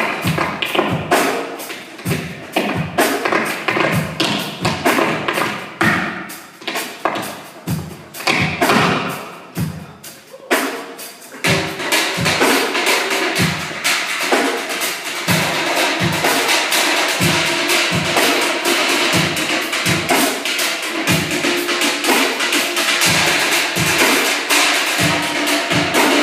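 Live percussion routine: drums and struck cans keep a steady beat of strikes. About eleven seconds in the sound grows fuller and denser, and the strikes go on over it.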